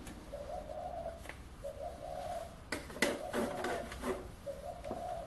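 Doves cooing: a run of short coos, one every second or two, with a few sharp clicks and knocks between them, the loudest about three seconds in.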